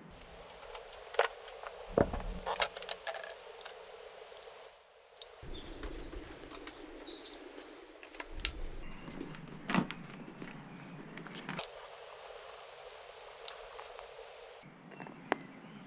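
Scattered clicks and knocks of hands handling a motorcycle's handlebar controls and a helmet, over a low hiss with faint, short high chirps in between.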